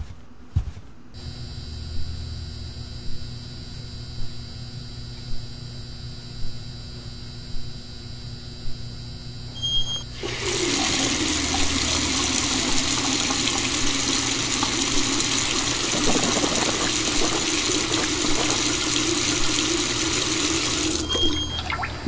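Soft footfalls about once a second over a steady room hum, then a bathroom faucet turned on and water running hard into the sink basin for about ten seconds before it is shut off near the end.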